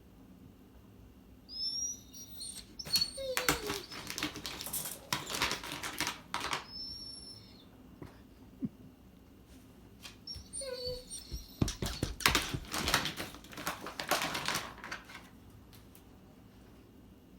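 A pet animal gives short high calls that glide down, then makes a run of rapid clicking and rustling lasting about three seconds. The pattern happens twice.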